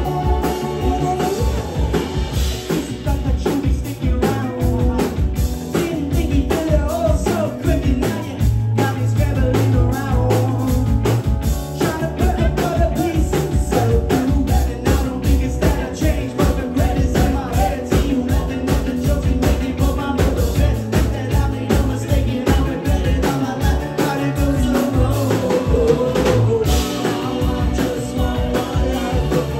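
A live rock band playing, with sung vocals over electric guitar, bass, keyboard and a drum kit keeping a steady beat.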